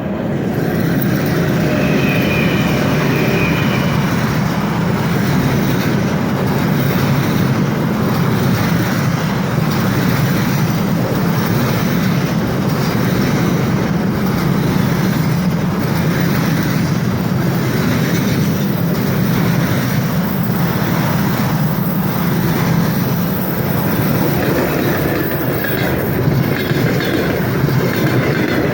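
Fast passenger train hauled by an EP1 electric locomotive passing at speed: a steady loud rumble of wheels on the rails with clickety-clack over the rail joints, and a faint high whine in the first few seconds.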